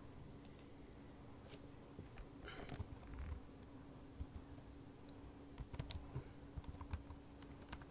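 Typing on a computer keyboard: faint, irregular keystrokes in short runs, over a faint steady hum.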